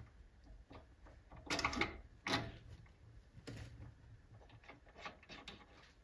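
Aluminium slide-lock block with a brass strip pushed by hand along an oiled mini lathe way: several short metal scrapes, then a few light clicks near the end.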